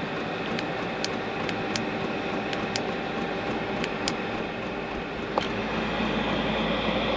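Chinese diesel air heater running, its blower giving a steady whir with faint, irregular ticks of the fuel pump. It is being turned up to its highest setting, and about five seconds in a deeper rumble comes in as the heater picks up pace.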